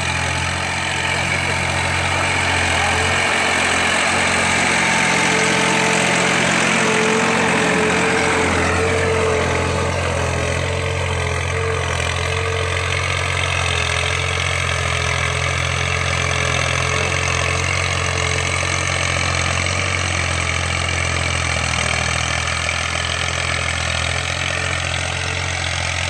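Farm tractor's diesel engine running steadily as it pulls a tiller through the soil. Its pitch drops once, about eight seconds in.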